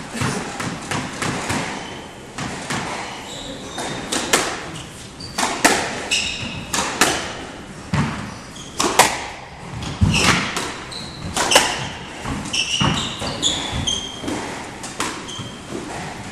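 A squash rally: sharp cracks of the ball off the rackets and the court walls, roughly one a second with some quicker pairs, starting about four seconds in. Short high squeaks of shoes on the wooden floor sound between the hits.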